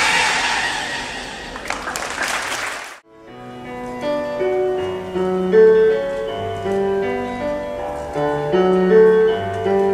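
Audience applauding over music, cut off abruptly about three seconds in. Then slow piano music with long held notes.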